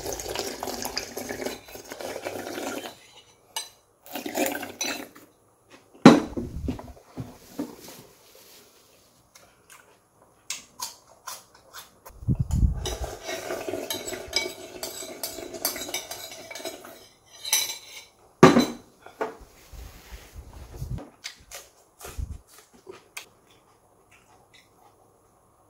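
Cutlery clinking and scraping against dishes in irregular bursts while food is eaten, with a few dull thumps.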